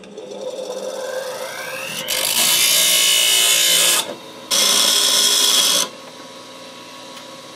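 A bench grinder is switched on and its motor whine rises as it spins up. A small metal tab washer held in locking pliers is then pressed to the grinding wheel twice, a loud hissing grind of about one and a half to two seconds each time, as an edge is ground off so the washer fits. The grinder then runs on unloaded.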